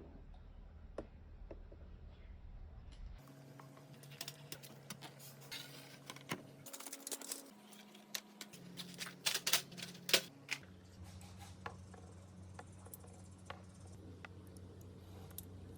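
Marbles rolling down a wooden track, clicking against the wood and each other in scattered ticks that thicken into a quick rattling cluster a little past halfway.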